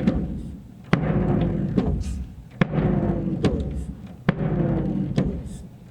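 Surdo bass drum playing a slow marcha rancho beat: a strong stroke about every 1.7 s, each ringing with a slowly falling pitch, and a lighter stroke halfway between each pair.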